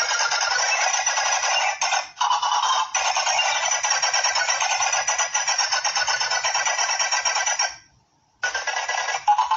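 Dense, very rapid clicking with short breaks, stopping for about half a second near the end before starting again.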